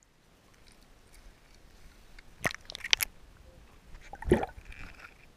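Water sloshing and dripping as a hand-held fish is lifted from a bucket and released under the surface, with the camera dipped in the water. Two sharp clicks come about halfway through, then a louder splash a second later.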